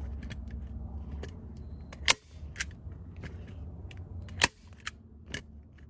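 A hand staple gun firing staples through plastic sheeting into a wooden frame: two sharp snaps about two and a half seconds apart, with a few fainter clicks between and after.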